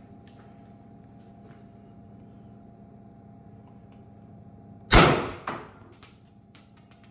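First Strike FSC less-lethal launcher, a blow-forward launcher running on high-pressure air, firing with a loud, sharp pneumatic crack about five seconds in. A second, weaker crack follows half a second later, then a few small clicks. The launcher went off twice, firing two rounds.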